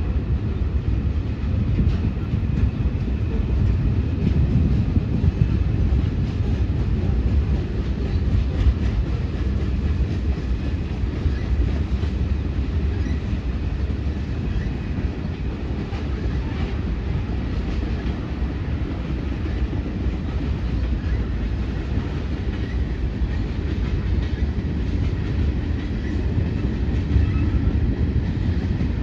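CSX freight train rolling past: a steady low rumble of railcars on the track, with intermittent clicks of wheels over rail joints.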